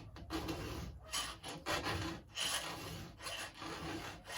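A hand file worked in repeated strokes across a square-ground chainsaw chain's cutter, sharpening it; the strokes come at an uneven pace, roughly two a second.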